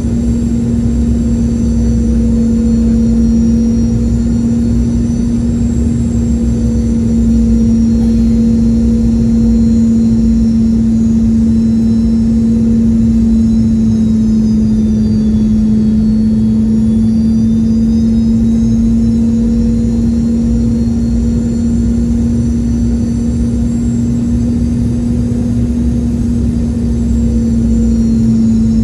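Cabin noise of a Boeing 717-200 airliner on approach: a loud, steady drone with a constant low hum, and a high whine from its Rolls-Royce BR715 turbofans that dips in pitch about halfway through and then rises again as thrust is eased and added.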